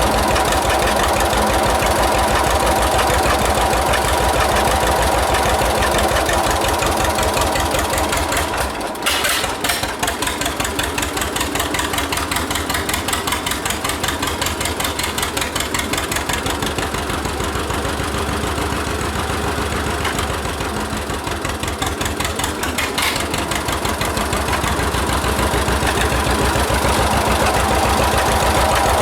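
1946 John Deere AR's two-cylinder engine running with its muffler off, the open exhaust giving a steady rapid popping. The note dips briefly about nine seconds in, runs a little quieter for a while, and picks back up toward the end.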